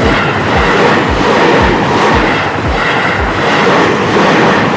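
Seibu Haijima Line electric train passing close at speed: a loud, steady rush and rumble with low thumps a few times a second as the wheels run over the rail joints.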